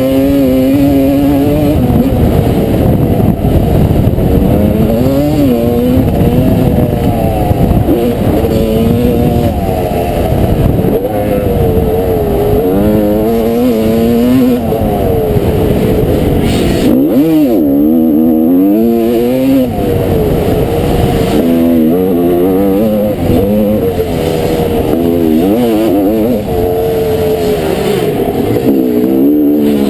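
1989 Honda CR250R's 250 cc single-cylinder two-stroke engine being ridden hard on a motocross track, revving up through the gears and falling off on shifts and off-throttle over and over. Past the halfway point the revs drop away sharply, then climb again.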